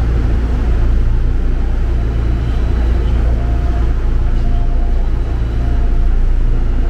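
Seoul Subway Line 8 train heard from inside the car while running: a steady low rumble from the wheels and running gear.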